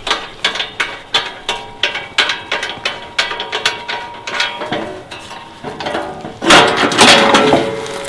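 Metal rear cover of a stand-on leaf blower being unfastened and taken off: a run of sharp metallic clicks and clanks, two or three a second, then a louder rattle of the panel near the end.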